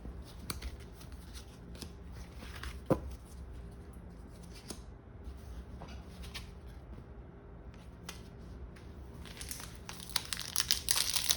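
Faint scattered clicks of trading cards being handled, then near the end a foil booster-pack wrapper crinkling and tearing as it is opened.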